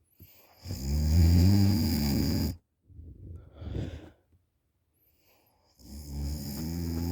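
A person snoring loudly in sleep: one long snore of about two seconds, a softer breath, a pause of over a second, then the next snore begins near the end.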